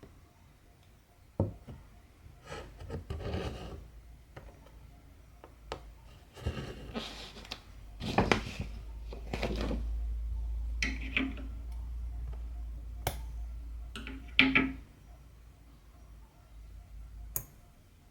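Cotton embroidery thread being pulled through cross-stitch fabric in several rasping swishes, with a few sharp clicks and a low hum under the middle part.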